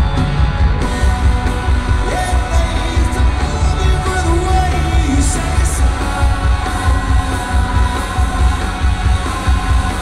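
Live rock band playing a song, a man singing lead over electric guitar and drums at a steady, loud level.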